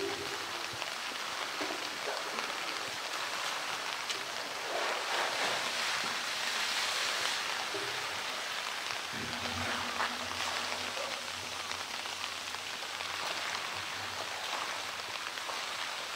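Steady rain falling on wet rock and water, an even hiss.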